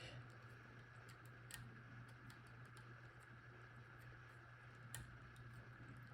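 Faint, scattered small metallic clicks of a disc-detainer pick turning the discs inside an Abloy Classic padlock while picking it, over a steady low hum.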